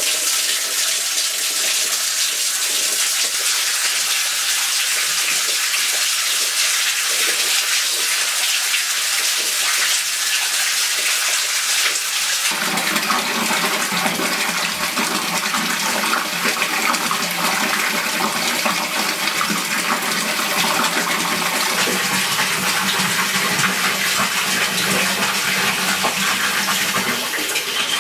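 Water from a wall-mounted bathtub tap running steadily into a filling tub. About halfway through the sound turns fuller and lower as the stream pours into the water already standing in the tub.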